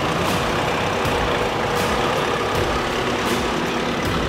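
Nissan Navara pickup's engine running steadily at low revs as it crawls along at walking pace, with short high swishes every second or so.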